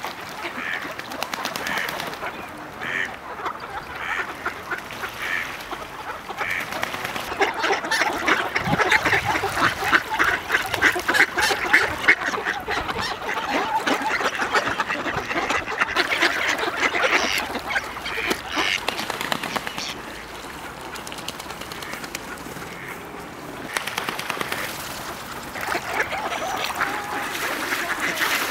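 A flock of mallard ducks quacking, many short calls in quick succession. The calling is busiest and loudest through the middle stretch, thins out for a few seconds after that, and picks up again near the end.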